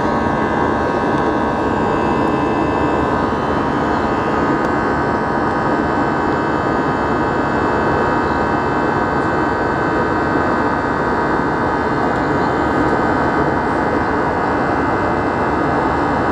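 Jet airliner's engine heard from inside the cabin beside the wing in flight: a steady, unchanging drone of engine and airflow noise with a few thin, steady whining tones from the fan.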